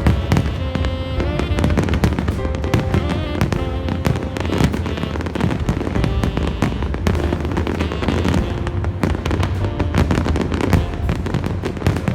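Aerial fireworks bursting, many bangs in quick succession, over loud music with held notes played alongside the display.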